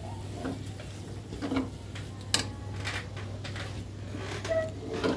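Metal spoon scraping and knocking against a steel karahi while a crumbly nut-and-coconut laddu mixture is stirred, in scattered clicks and scrapes over a low steady hum.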